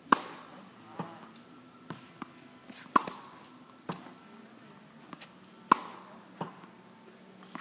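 Tennis ball struck by a racket in groundstroke rallying on a hard court. A sharp pop comes roughly every three seconds, with softer knocks of the ball bouncing in between.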